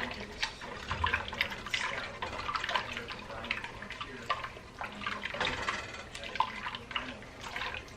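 Seasoned liquid in a pot being stirred with a spoon: irregular sloshing and small splashes.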